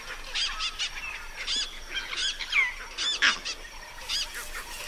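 A chorus of bush birds giving alarm calls: many short, harsh calls repeated and overlapping. The uproar is raised at a male leopard moving through.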